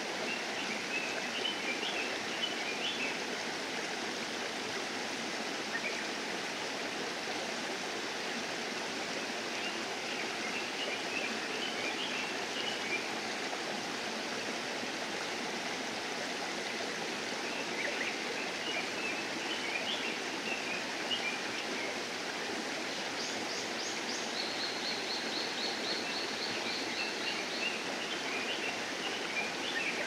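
A steady rushing, water-like noise carries on throughout. Over it a small songbird sings a short warbling phrase about every eight seconds, four times. Near the end a thin high trill runs for about three seconds.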